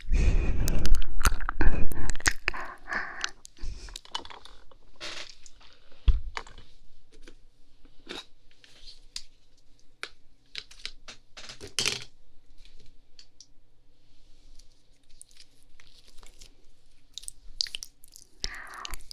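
Close-miked wet mouth sounds of slow ear licking and kissing: scattered wet clicks and smacks. The first few seconds are louder, with a deep rumble, and single sharper smacks stand out about six and twelve seconds in.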